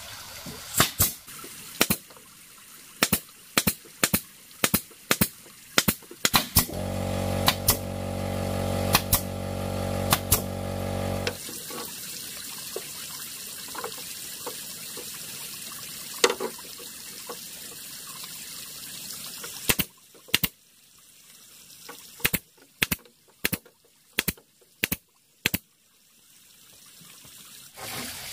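Nails being driven into bamboo floor slats: around two dozen sharp, separate shots in irregular groups. A motor runs steadily for about five seconds a quarter of the way in.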